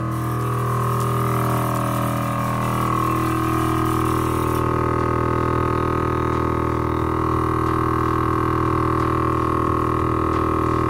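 Viair 444C 12-volt air compressor running steadily, a loud continuous droning hum, as it fills the air tank of an air-ride suspension.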